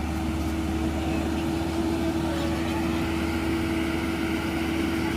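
Combine harvester engine running steadily at constant speed, a continuous even hum.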